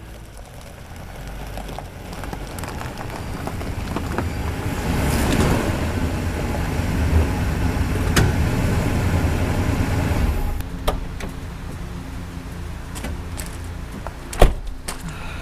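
Class C motorhome's engine running close by, a low rumble that builds over the first few seconds and drops away about ten seconds in. After it, scattered clicks and one sharp knock near the end.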